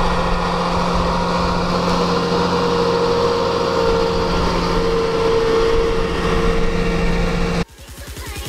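A John Deere tractor's diesel engine running steadily under load as it pulls a seed drill across a field, with a steady droning tone. The sound cuts off suddenly near the end, giving way to a quieter, low pulsing sound.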